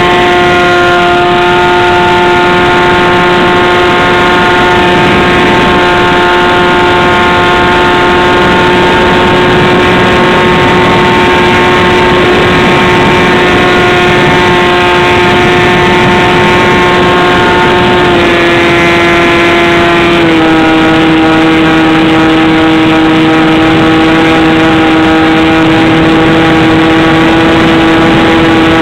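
Model airplane's motor and propeller running steadily at high throttle, heard close up from on board as a loud, steady whine. The pitch dips slightly at the start and steps down twice about two-thirds of the way through as the throttle or airspeed changes.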